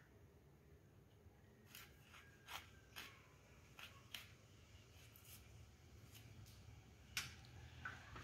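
Faint, irregular cutting and scraping as segments of elephant apple are sliced and pared against a boti's curved blade, a handful of short scrapes and soft knocks over a low hum.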